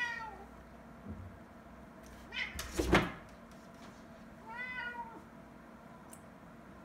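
A cat meowing three times in short calls while trying to open a closed door, with a sharp thump against the door about three seconds in as it jumps up at the handle.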